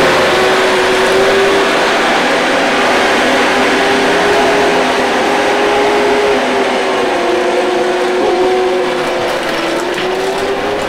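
A motor running steadily: a constant mid-pitched hum over a hiss, its pitch wavering slightly and dipping briefly near the end.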